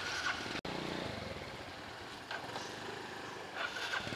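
Steady outdoor background noise with a vehicle engine running, broken by a brief dropout about half a second in.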